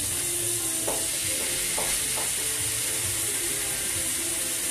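Pork chops sizzling steadily in a hot frying pan, with a few light taps about one and two seconds in.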